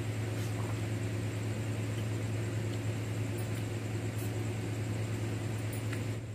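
A steady low machine hum with a faint high whine above it, and a few faint ticks.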